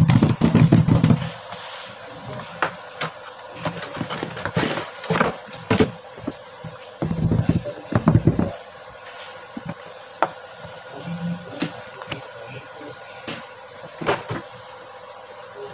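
Hands handling an art kit's cardboard box and clear plastic carry case: scattered taps, clicks and rubbing of cardboard and plastic. The handling is loudest and lowest in the first second and again around seven to eight seconds in.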